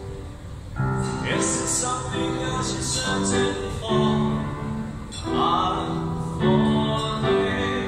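A man and a woman singing a song with piano accompaniment, in sustained phrases that come in strongly about a second in.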